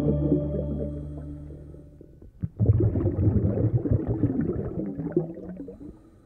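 Background music fading out, then about two and a half seconds in an irregular gurgling, bubbling water sound that fades away.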